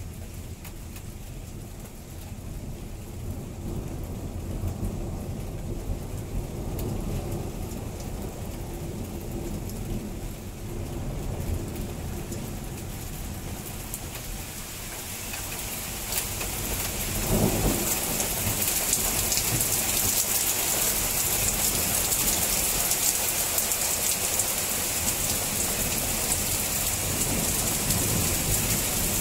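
A thunderstorm: low rumbling thunder through the first half, then rain picking up from about halfway and falling hard to the end.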